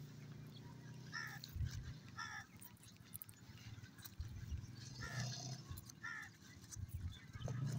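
Francolin (teetar) chicks giving a few short, soft calls at irregular intervals, with a low steady background hum.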